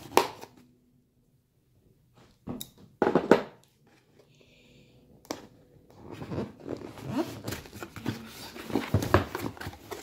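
A cardboard box being cut and opened by hand. A few sharp scrapes and taps of a small blade on the box's tape come near the start and about three seconds in, followed by several seconds of cardboard scraping and rustling as the lid is worked loose and lifted.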